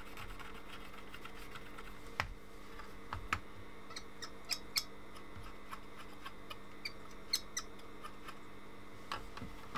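About a dozen light, irregular clicks and taps of small plastic and metal parts being handled while the multimeter's battery contacts are cleaned with isopropyl alcohol, the sharpest about two seconds in, over a steady faint hum.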